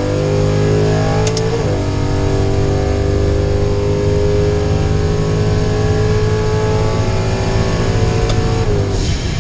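Boosted Hemi V8 of a Ram 1500 pickup at full throttle, heard from inside the cab: revs climb, drop with an upshift about a second and a half in, then climb steadily again for several seconds. Near the end the revs fall away as the run ends or the next shift comes.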